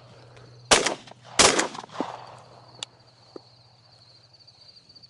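Two shotgun shots under a second apart, fired at a passing dove by two hunters shooting almost together; the second rings on briefly.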